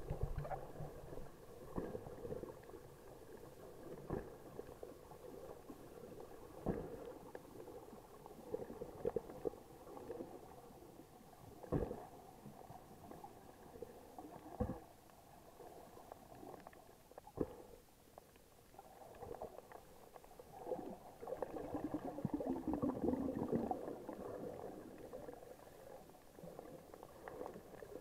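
Water gurgling and bubbling, heard underwater through an action camera's waterproof housing, with scattered sharp knocks. About three quarters of the way through, a louder, longer stretch of bubbling.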